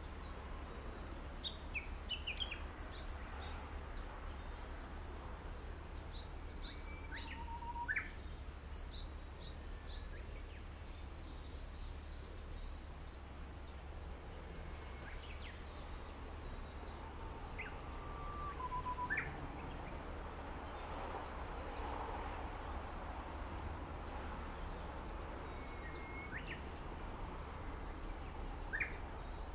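Scattered short chirps and calls from small birds, some quick falling notes and a couple of brief trills, over a steady high hiss and low background rumble.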